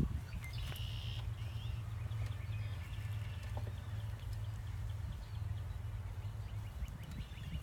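Low, steady hum of a package full of honey bees buzzing while the queen cage is pulled out.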